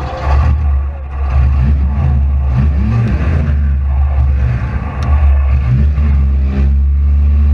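Demolition derby car engine revving up and down repeatedly over a heavy low rumble, with a single sharp knock about five seconds in.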